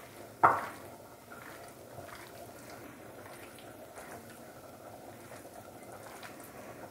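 A hand mixing raw chicken pieces into a thick spiced yogurt marinade in a ceramic bowl, making soft, wet sounds, with one sharp knock about half a second in.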